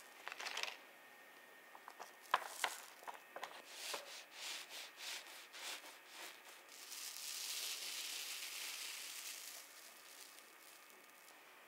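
A knife cutting down through a Taiwanese castella cake's crust and soft sponge makes a run of soft crackling, scraping strokes. About seven seconds in comes a longer soft tearing hiss as the airy sponge is pulled apart by hand. A brief rustle of the parchment lining comes at the start.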